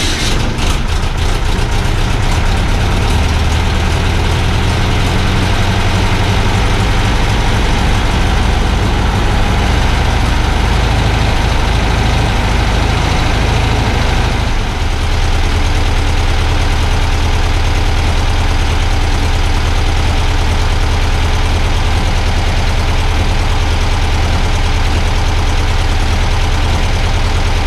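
Freshly rebuilt air-cooled flat-four engine of a VW Type 3 idling steadily just after starting. It is a little uneven in the first second, and there is a brief dip and a change in its note about halfway through.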